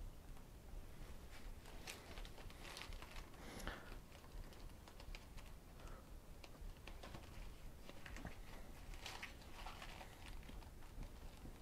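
Thin pages of a thick hardback book being turned and leafed through: faint irregular paper rustles and light flicks, with a couple of louder page turns.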